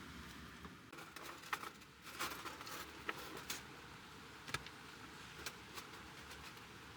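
Faint scattered clicks and ticks with a brief rustle a couple of seconds in, over a quiet steady hiss in a small room.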